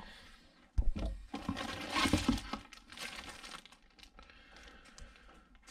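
Cardboard box flaps and a plastic-bagged manual being handled, crinkling and rustling. There is a sudden thump about a second in, and the rustling is loudest around two seconds.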